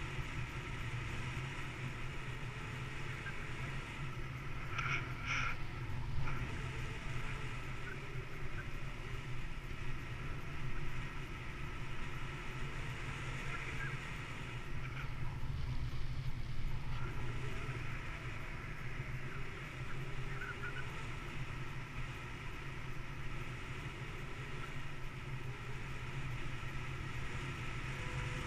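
Steady rush of wind over the camera microphone of a paraglider in flight, with two short, higher sounds about five seconds in.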